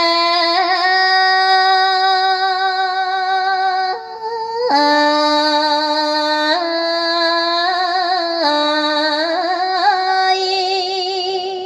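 Music: a high voice singing long, drawn-out notes that change pitch every second or two, wavering near the end and then fading away.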